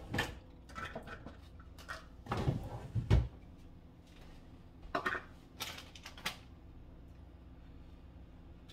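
Kitchen handling noises: scattered knocks and clatter of things being picked up and set down, loudest as a pair of thumps about two and a half to three seconds in, with another cluster of clicks around five to six seconds, over a faint steady hum.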